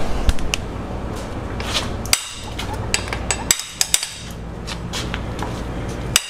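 Wrench and socket, levered with a steel cheater pipe, loosening cylinder head bolts on a 2.4 MultiAir engine. Irregular sharp metallic clicks and clinks, a few ringing briefly, over a steady low hum.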